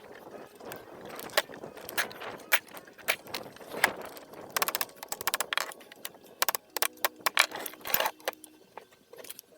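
Metal hand tools clinking and tapping against small metal engine parts during disassembly of a governor and push rod assembly. The strikes are irregular and come in quick clusters, and a few of them near the end leave a short metallic ring.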